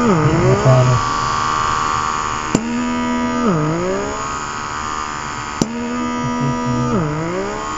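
Small electric suction pump of a rechargeable blackhead-removal device running at grade 1, its lowest suction setting, with a steady whine. Its pitch sags and recovers three times, about every three seconds, and a sharp click comes shortly before each sag.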